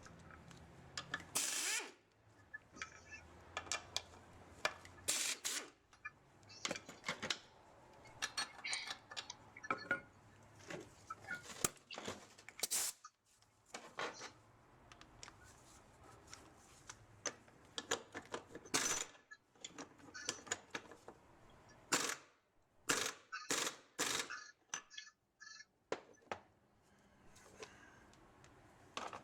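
Irregular metallic clicks and clinks of hand tools and steel parts as a flange is unbolted and lifted off a CVT transmission, with a short hiss-like burst about a second and a half in.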